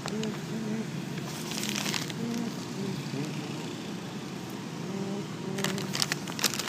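Newspaper pages rustling, once about a second and a half in and again near the end, over faint, muffled background voices.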